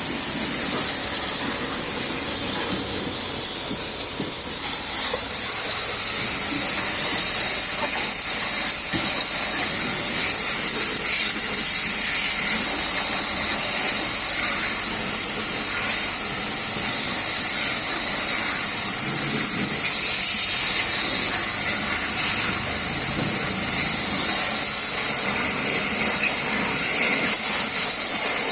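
Steady, loud hiss of a pressurised jet used in refrigerator servicing, even and unbroken.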